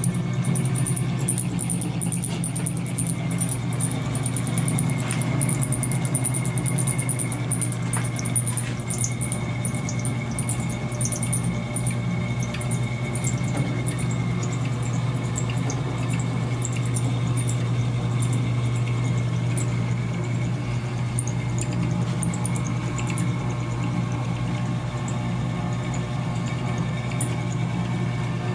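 Diamond milling machine running steadily under its 1 hp single-phase motor, a low even hum with a faint high whine through most of it and scattered light ticks.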